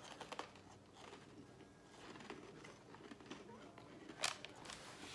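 Faint crunching and chewing of crisp carrot cake Oreo sandwich cookies, with a few soft crunches in the first half second and a louder crunch about four seconds in.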